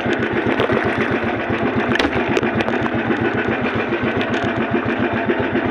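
Small boat engine running steadily with a fast, even firing beat.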